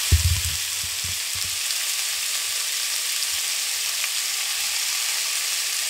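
Raw veal strips sizzling in hot oil in a frying pan, a steady high sizzle. A few low thumps come in the first second or so.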